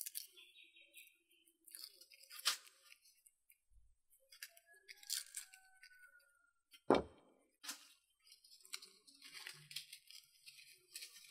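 Papery red onion skin crackling and tearing as it is peeled off by hand. One sharp knock about seven seconds in. Near the end, dry crackling as dried red chillies are broken apart by hand.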